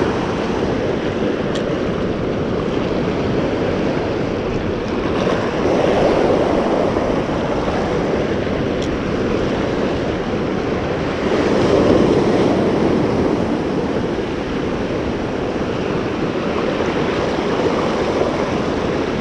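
Ocean surf washing up the beach and over the coral reef rocks. A steady rush that swells as waves break, most clearly about six and twelve seconds in.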